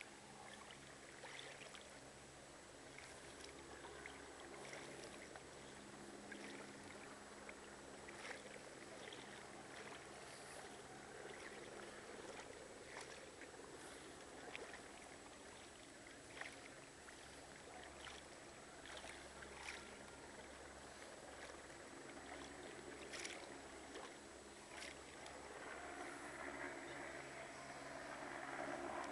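Faint sloshing of shallow floodwater, with scattered light splashes at irregular intervals.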